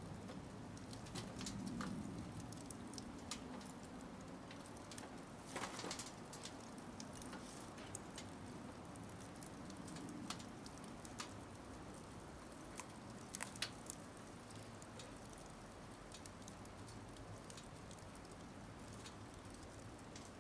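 Firewood burning in a Logos pyramid fire pit fitted with a DIY secondary-combustion insert, crackling with irregular sharp pops over a low steady background.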